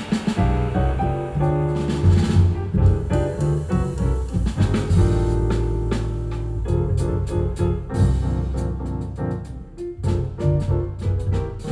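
Jazz played back through Avalon Acoustics hi-fi loudspeakers and heard in the listening room: strong bass notes, piano and drum hits.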